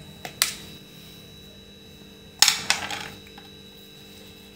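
A steel knife clinking against a ladle and a ceramic plate while scraping sticky halwa off: one sharp clink about half a second in, then a louder cluster of clinks about two and a half seconds in.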